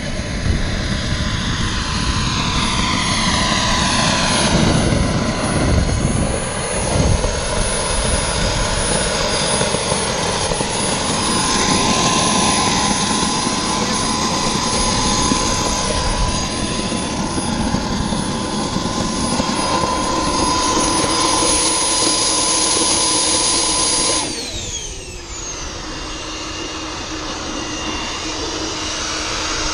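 Model jet's turbine engine running with a loud, steady high whine. About 24 seconds in, the whine falls away in a quick downward glide as the engine spools down, and a quieter steady running sound with lower tones carries on.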